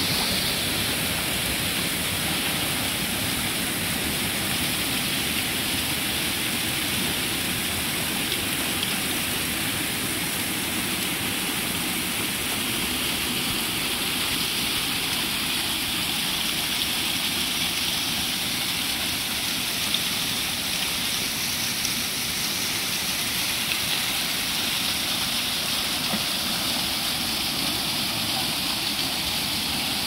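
Thin waterfall pouring down a rock face into a shallow pool: a steady splashing hiss of falling water.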